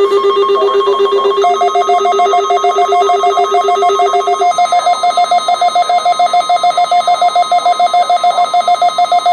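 Weather radio receivers sounding their alert alarm: rapid electronic beeping at about eight to ten pulses a second. A lower-pitched beep runs until about halfway through, and a higher-pitched beep joins it about a second and a half in.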